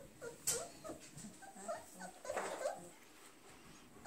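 Four-week-old German shepherd puppies whimpering softly, a scattering of short, high squeaks and whines.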